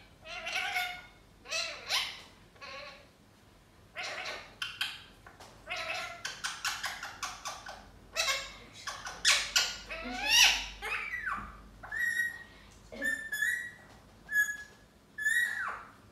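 Lutino Indian ringneck parakeet chattering in short bursts of mimicked, speech-like sounds, then giving several short whistles, some falling in pitch, in the last few seconds.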